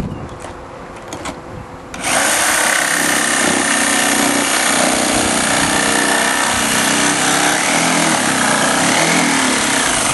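Corded jigsaw with a small blade cutting through a car's bumper cover. The saw starts abruptly about two seconds in and then runs steadily under load.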